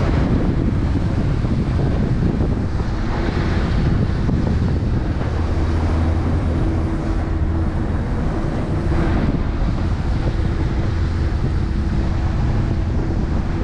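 Motorboat running under way: a steady engine hum with water rushing along the hull and wind noise on the microphone.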